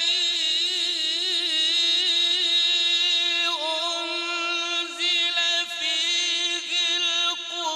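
A male qari reciting the Quran in melodic tajweed style, holding one long note with fast ornamental wavering in pitch and a few short breaks in the second half.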